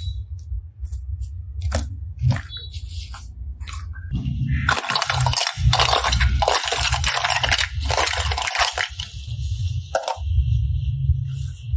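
Hollow clear plastic capsule eggs clattering and clinking together as a hand rummages through a pile of them. There are a few scattered taps first, then about four seconds of dense clatter in the middle, and a single click near the end.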